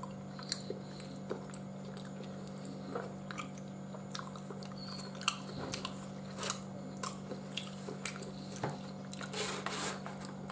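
A person chewing soft Turkish delight close to the microphone: wet mouth clicks and smacks scattered throughout, over a steady low hum.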